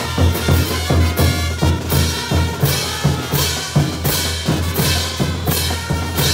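Bolivian brass band playing caporales music. Bass drums and crash cymbals beat about twice a second over held low tuba and horn notes.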